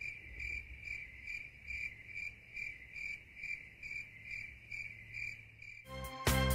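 Cricket chirping, an even chirp a little over twice a second, used as the comic sound effect for an awkward silence. Music comes in near the end.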